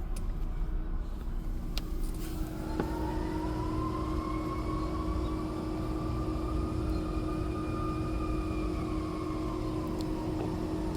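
A siren wailing once: its pitch climbs slowly, holds, then sinks away, over a steady low hum and rumble. The source is not settled: it was first taken for a tornado siren, then thought to be possibly a fire truck or ambulance.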